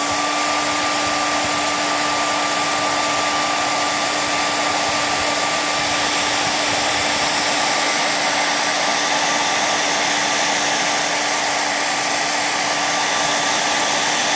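Handheld hair dryer running steadily, a constant whine over the rush of air, with its nozzle held close to a canvas to blow melted crayon wax into drips.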